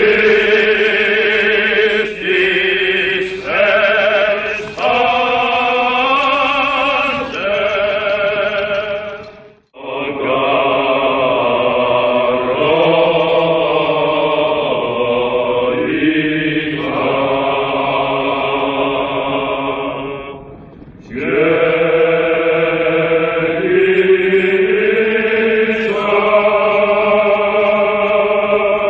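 Background music of a choir singing a slow chant: long held notes that step from pitch to pitch in long phrases, with short breaks about ten and twenty seconds in.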